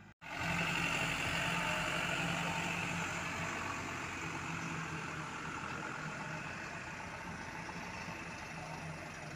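Diesel engine of a loaded Isuzu Elf dump truck running steadily as the truck drives slowly on a dirt track, starting suddenly after a brief dropout and fading gradually.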